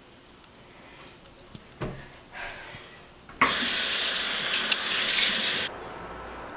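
Bathroom sink tap running into the basin for a little over two seconds, starting abruptly and cutting off suddenly. A few light knocks come before it.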